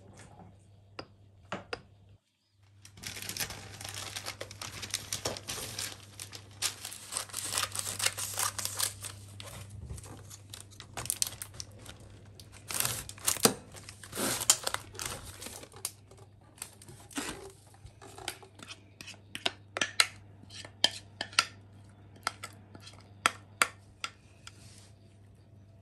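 Baking parchment paper crinkling and rustling as it is handled to line a metal springform cake tin, followed by a run of separate sharp clicks over the last several seconds. A low steady hum sits underneath.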